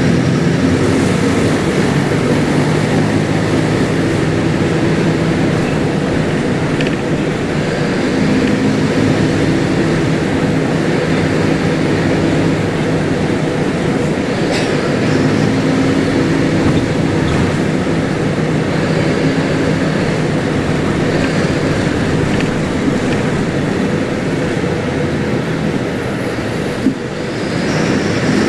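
Diesel engine of a Mercedes-Benz OF-1721L Euro 5 city bus running loud while the bus is driven. Its note rises and falls several times as it pulls and eases off, over a steady rumble, with one short click about halfway through.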